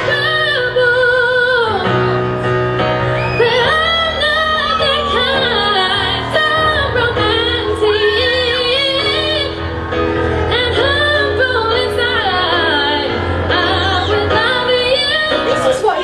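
A woman singing a slow melody with long held notes, over keyboard accompaniment.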